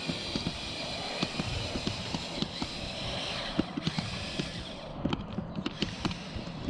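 Small electric motors of a Lego RC crawler whining through plastic gears, with irregular clicks and knocks of the plastic rig against the concrete steps as it tries to climb. The whine eases off about five seconds in, leaving scattered clicks.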